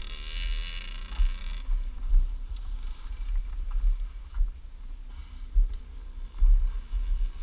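Dirt bike engine running, muffled under heavy wind buffeting on the camera microphone. A higher engine whine is heard for the first second and a half, then fades.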